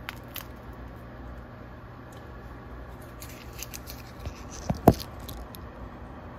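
Camera handling noise over a low steady hum: light clicks at the start, a scatter of small ticks and rustles, then a sharp knock nearly five seconds in as the camera is moved.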